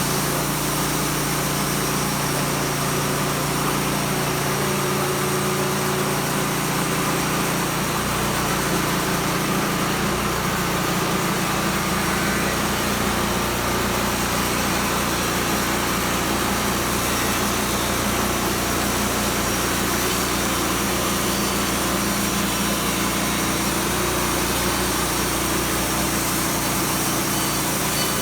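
Petrol engine of a portable sawmill running steadily.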